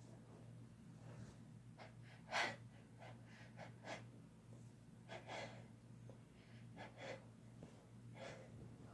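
A person's quiet sniffs and short gasping breaths, about a dozen brief ones spread over several seconds, one a little louder about two and a half seconds in: the build-up to a sneeze.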